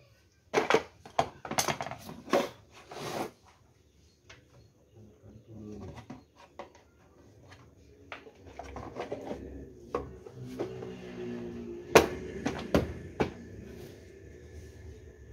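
Hard plastic clicks, knocks and scraping as the red control-panel cover of a Swan F16 electric knapsack sprayer is handled and pressed onto its tank. A quick cluster of knocks comes in the first few seconds, then scattered clicks, with one sharp click about twelve seconds in, the loudest.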